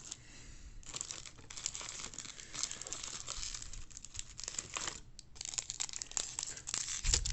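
Foil trading-card pack wrapper being torn open and crinkled by hand: a dense, irregular crackle, with a brief pause about five seconds in.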